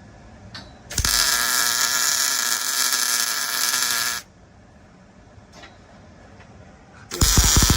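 Arc welding on steel roll-cage tubing: two welds, each a steady crackling buzz that starts and stops abruptly. The first lasts about three seconds and begins about a second in; the second starts near the end.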